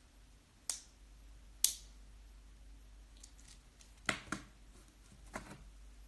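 A few short clicks and taps in a quiet room: two sharp clicks about a second apart, then softer, duller taps later on.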